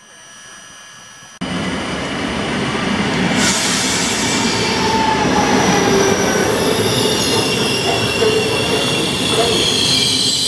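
An ED250 Pendolino electric train moving along the station platform: a dense rumble that starts abruptly about a second and a half in, with high, wavering squealing tones joining it from about three and a half seconds in. Before that there is a quieter steady hum.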